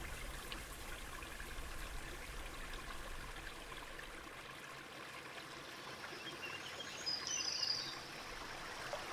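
Faint, steady rushing of a garden stream or small waterfall, with a brief high chirp about seven seconds in.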